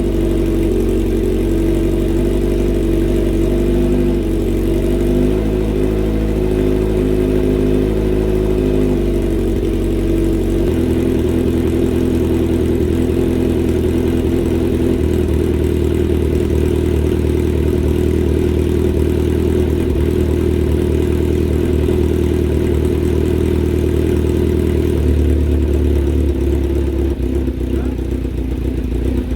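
Kawasaki Z900's inline-four engine idling after a cold start through an Austin Racing exhaust, a steady, even note whose tone shifts a few times along the way.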